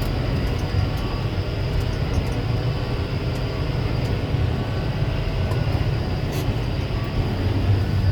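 Combine harvester running steadily under load while picking up and feeding in a swath: a continuous low drone with faint rattling clicks on top.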